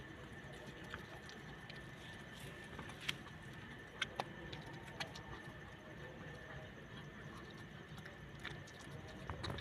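A dog nosing at and eating food off the ground: a few faint, scattered clicks over a steady low background noise.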